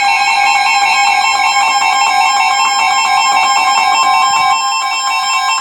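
Several weather radios sounding their emergency alert tones at once: loud, steady electronic tones held together without a break. This is the attention signal that announces a severe thunderstorm warning.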